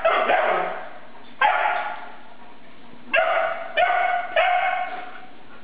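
Greater Swiss Mountain Dog puppy barking in high-pitched yappy barks, about five in all, the last three coming in quick succession; a play bark aimed at an adult dog.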